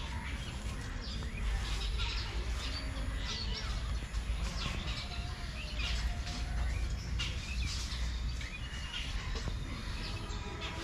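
Birds chirping repeatedly in short calls, over a low steady rumble.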